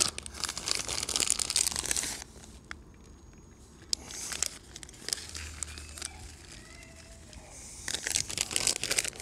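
Plastic bag of grated cheese crinkling as it is handled and tipped over a plate. It comes in two dense spells, one in the first two seconds and another about eight seconds in, with scattered crackles between.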